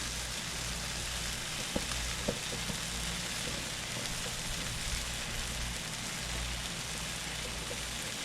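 Bread slices spread with mayonnaise frying in a pan, a steady sizzle, with a couple of small clicks about two seconds in.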